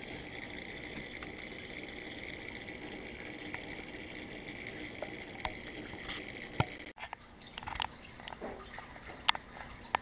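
Home aquarium heard from underwater: a steady hiss and hum of water and running tank equipment, with scattered small sharp clicks and drips. The sound drops and changes suddenly about seven seconds in, after which the clicks come more often and louder.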